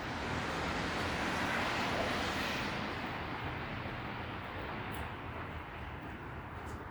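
A car passing on a wet street: the hiss of its tyres on the wet road swells over the first couple of seconds, then slowly fades away.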